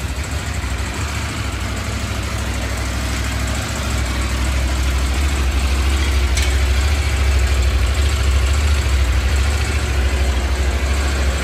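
CFMOTO Ibex 800 T's parallel-twin engine idling steadily on its very first start, a little louder from about four seconds in.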